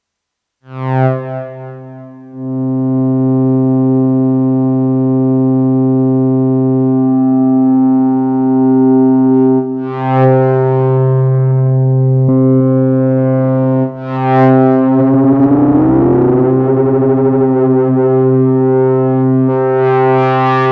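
Korg Minilogue XD synthesizer holding a low droning note rich in overtones. It starts about half a second in, is re-attacked twice, and has a rising sweep through its upper tones in the second half.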